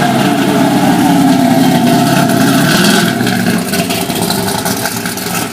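Race car engine running loudly, its pitch easing slowly down, then fading over the last couple of seconds.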